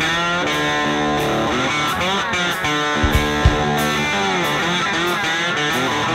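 Background music led by electric guitar, with notes bending up and down in pitch over a steady band.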